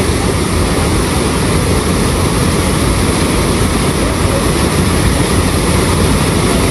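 Water rushing over a small brick drop in an irrigation canal: a loud, steady, even noise with no breaks.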